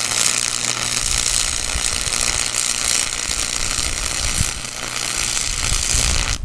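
Stick-welding arc from a 120-amp, 110-volt buzz-box welder: a steady, loud crackle and sizzle that cuts off suddenly near the end as the arc is broken.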